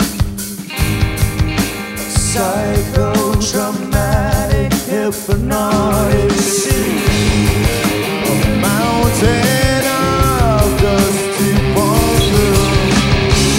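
Rock band playing live: drum kit keeping a steady beat under electric guitars and bass, with a bending, gliding lead melody on top.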